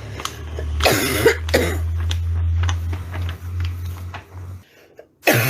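A woman's barking cough: a hard cough about a second in, a few lighter coughs after it, and another hard one just before the end. A low steady hum runs underneath and stops about four and a half seconds in.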